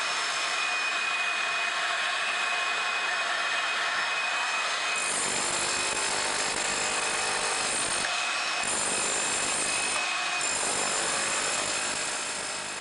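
Steady, loud power-tool noise of dust-free concrete removal with the DustRam system. The low rumble drops out briefly about eight and ten seconds in, and the sound fades away at the end.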